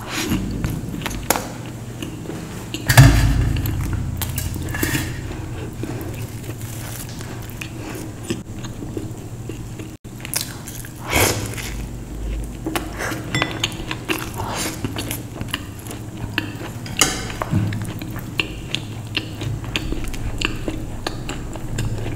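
Close-miked eating: chewing and biting, with short clicks and clinks of cutlery or dishes and a loud knock about three seconds in.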